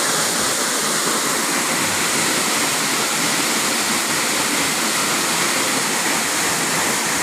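Steady rush of fast-flowing water in a mountain river, an even unbroken noise.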